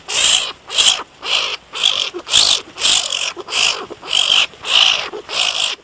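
Striped skunk hissing in a steady run of short, raspy, breathy bursts, about two a second.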